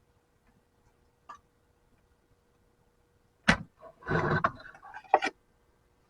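Tools being handled while casting lead sinkers. There is one sharp knock, then a short scraping clatter, then another sharp knock near the end, with a faint tick before them.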